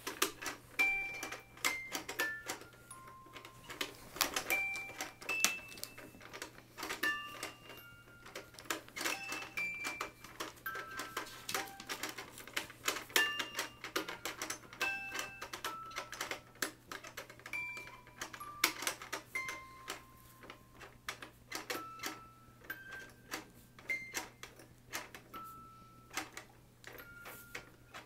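Toy drum being tapped by hand, a run of quick irregular light taps mixed with short notes that jump between several pitches.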